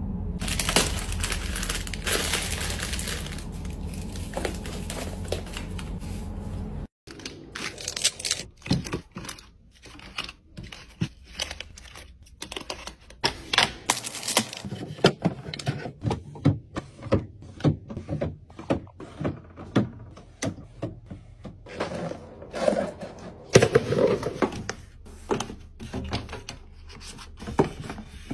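Wrapped snacks crinkling as they are packed into a basket over a steady low hum, cut off abruptly about seven seconds in. Then a run of sharp taps, clicks and crinkles as plastic-wrapped drinks and squeeze pouches are handled and set down in a fridge, louder for a few seconds near the end.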